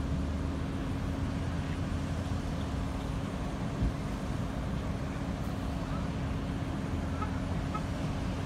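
A vehicle engine running steadily, a constant low rumble with a steady hum over it, with a single short thump about four seconds in.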